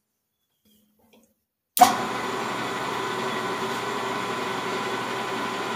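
Silence, then a little under two seconds in a metal lathe's steady running cuts in abruptly with a click and carries on evenly, with a constant hum.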